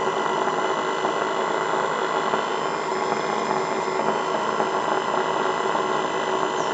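Small 12 V DC-to-AC converter running, with a steady electrical hum and a high whine.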